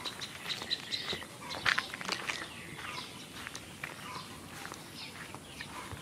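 Small birds chirping over irregular footsteps on a dirt road, with a sharper click a little under two seconds in.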